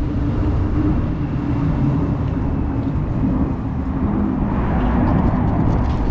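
Wind buffeting the microphone in a steady low rumble, with road traffic running beneath it.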